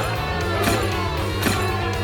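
Background music with a steady beat, a strike about every three-quarters of a second.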